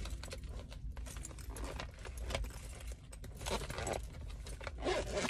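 Irregular light clicks and jingling of small hard objects being handled, over a steady low hum.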